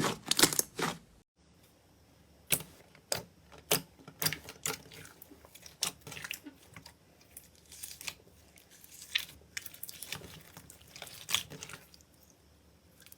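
Slime being squeezed and poked, giving irregular sharp pops and crackles. Dense crackling stops at a cut about a second in, then single pops come every half second or so, growing sparse near the end.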